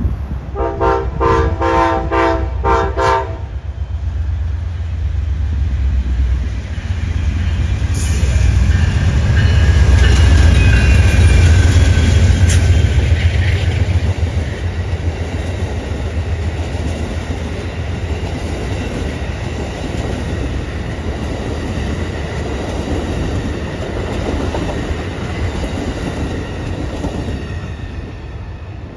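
Amtrak passenger train led by a diesel locomotive passing at speed: the horn sounds a quick string of short blasts at the start, the locomotive's rumble and whine swell to their loudest as it goes by, then the cars rush and clatter past and fade near the end.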